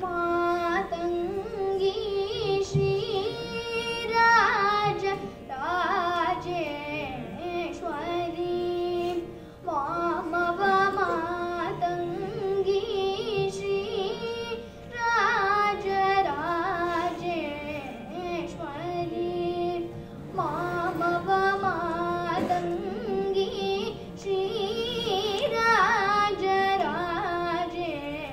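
A young girl singing a Carnatic krithi solo into a microphone, her voice gliding and curving between notes in long phrases over a steady drone.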